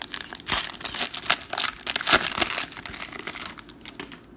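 Foil wrapper of a Panini Prizm football card pack being torn open and crinkled by hand, a dense crackle that stops just before the end.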